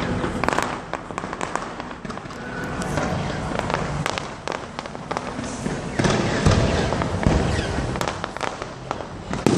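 Aerial fireworks going off in a rapid, overlapping run of sharp pops and bangs, loudest from about six seconds in, with one sharp bang near the end.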